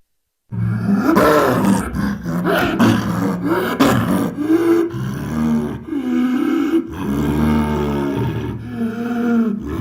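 Tyrannosaurus rex roar sound effect: a loud, low roaring growl that starts about half a second in, with repeated calls that rise and fall in pitch.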